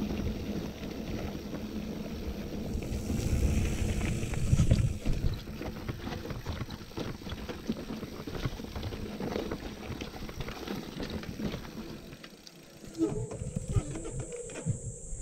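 Giant Anthem mountain bike riding a dirt trail: tyres rolling over rough ground, with frequent rattles and knocks from the bike over bumps and wind rumble on the microphone. The noise dips briefly about twelve seconds in.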